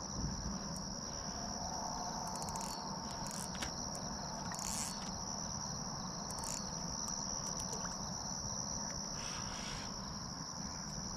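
A steady, high-pitched insect chorus, like crickets trilling, with a few faint clicks here and there.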